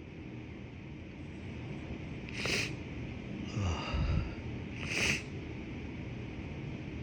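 A person with a congested, tickling nose sniffing sharply twice, about two and a half seconds apart, with a snuffling breath between the sniffs.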